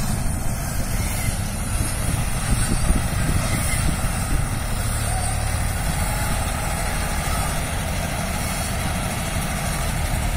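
John Deere 5310 tractor's diesel engine running steadily, driving a mounted Dashmesh combine harvester as it works through lodged paddy.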